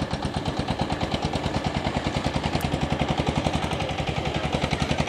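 A small engine running steadily out of sight, chugging with a fast, even beat of about ten pulses a second.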